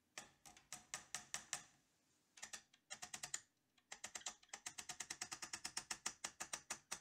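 Light metal-on-metal taps of a brass hammer on a pin punch, driving the scope mount retaining pin into the rifle's rear sight base: a few scattered taps, then a quick steady run of about five taps a second from about four seconds in.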